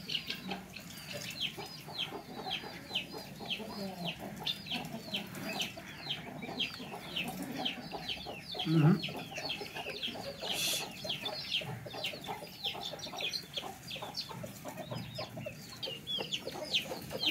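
Birds chirping steadily in the background: a continuous run of short, falling high-pitched chirps, about three a second, with a dull knock about halfway through.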